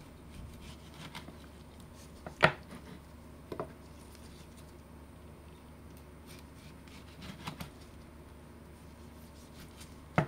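Kitchen knife slicing through tomatoes on a wooden cutting board: faint cutting and rubbing, with the blade knocking sharply on the board a few times, loudest about two and a half seconds in and just before the end.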